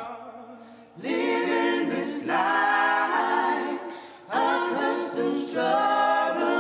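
Gospel choir singing a cappella. The voices come in about a second in and pause briefly near four seconds before going on.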